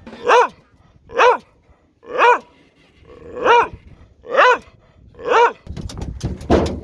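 A dog barking six times, about one bark a second, each bark rising and then falling in pitch. Near the end a rough rustling noise with a few sharp clicks follows the last bark.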